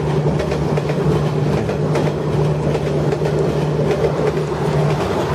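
Battery-powered plastic toy train's small electric motor whirring steadily, with light plastic clicks as the toy vehicles and flatcars are handled.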